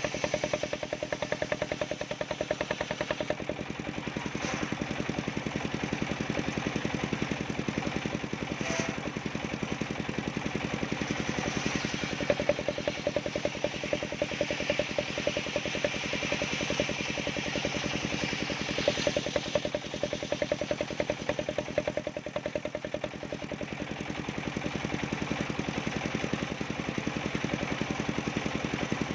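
Homemade engine-driven circular saw running steadily with a rapid even pulse while slicing bendo wood; a louder high-pitched hiss rises through the middle stretch.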